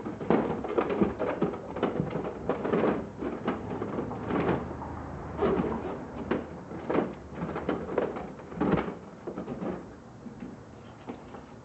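Pieces of a dismantled Christmas yard deer decoration being dropped and packed into a storage box: a run of irregular knocks and clatters that thins out to a few faint ones after about nine seconds.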